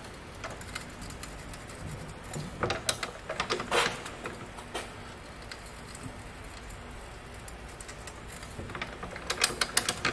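Ratchet wrench clicking in quick runs as it is swung back and forth on a rear camber arm bolt. One cluster comes about two and a half to four seconds in, and a faster run of clicks comes near the end.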